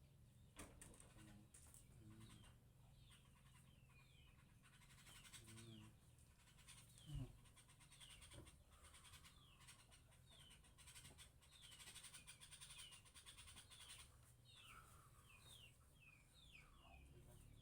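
Faint, quick falling chirps of small birds, repeated over and over, with a soft thump about seven seconds in.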